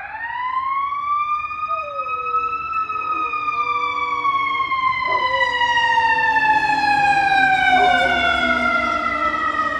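A siren winds up, its pitch rising for about three seconds and then sinking slowly for the rest. A Great Pyrenees howls along underneath, quieter, in wavering notes.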